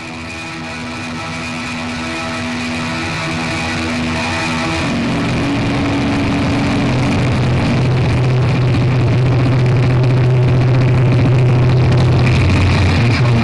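Power electronics / harsh noise music: a dense wall of distorted noise over sustained droning tones, swelling steadily louder. About five seconds in, the drone shifts down to a deep low hum that carries on beneath the noise.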